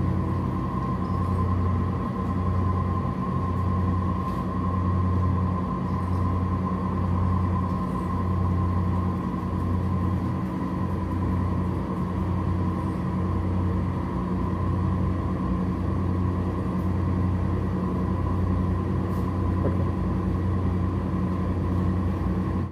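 Steady machine hum with a low throb that swells and fades about once a second, and a thin steady whine above it.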